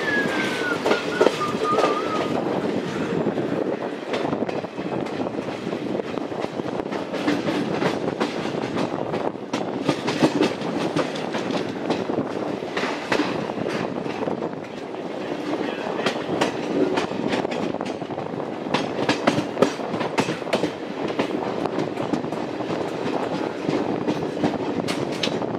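Indian Railways express coaches running on the rails, heard from an open coach door: a steady rumble with the wheels clicking irregularly over rail joints and points, the clicks bunching in places.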